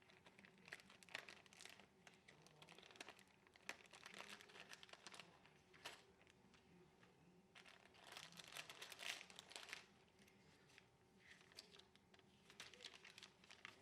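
Crinkly plastic packaging of a Lego Mixels set being handled and torn open, in irregular bursts of rustling and crackling with a short pause twice and the busiest stretch past the middle.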